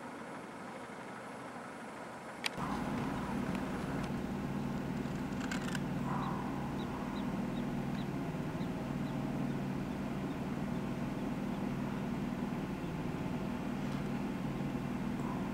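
A vehicle engine idling steadily: a low, even hum. About two and a half seconds in there is a sharp click, after which the hum is louder.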